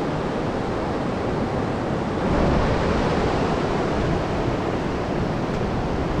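Steady rush of ocean surf breaking along the shore, with wind on the microphone; it swells a little about two seconds in.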